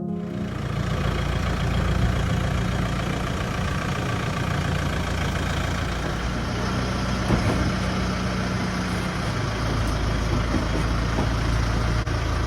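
Van engine running steadily, a constant low hum under an even rush of noise.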